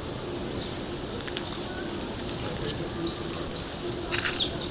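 Two high-pitched chirping calls about a second apart near the end, each rising and then falling, over a steady low hum.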